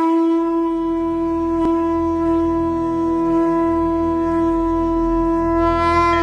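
A conch shell (shankh) blown in one long, steady note that bends slightly upward in pitch just before it stops, the traditional call that opens Hindu worship.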